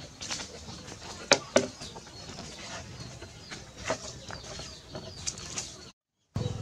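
A few sharp knocks over a faint outdoor background, the loudest two about a third of a second apart a little over a second in, with lighter ones later.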